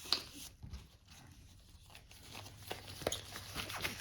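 Nitrile gloves being pulled onto the hands: faint rubbery rustling with a sharp snap at the start and a few light clicks in the second half.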